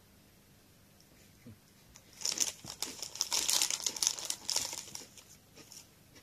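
Foil inner bag of a Koala's March biscuit box crinkling as it is handled and reached into. A dense run of crackles starts about two seconds in and lasts nearly three seconds.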